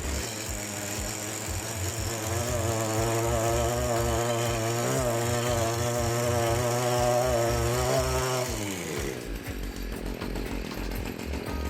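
STIHL KM56RC KombiEngine's small two-stroke engine running after a clutch drum replacement. It picks up speed about two seconds in and runs at a wavering pitch. About eight and a half seconds in it is shut off and winds down to a stop.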